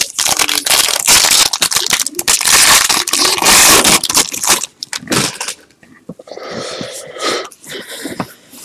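A foil trading-card pack being torn open and its wrapper crinkled, a loud crackling for the first four and a half seconds. It then drops to quieter rustling as the stack of cards is handled.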